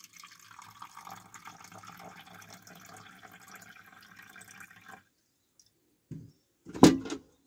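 Water pouring in a stream from the spout of an old metal kettle into a plastic cup for about five seconds, then stopping. A couple of sharp knocks follow near the end.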